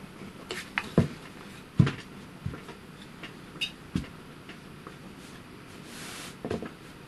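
Several quiet knocks of a wooden pressing block being set down and shifted on a plywood board over a steamed fabric belt, pressing it flat while it cools. A soft rub of a hand smoothing the fabric follows near the end.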